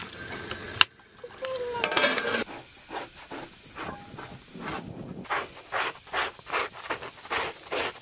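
Hand scraper drawn over a fur hide in rhythmic rasping strokes, about two to three a second, starting a couple of seconds in. Before it, a brief voice and a single sharp knock.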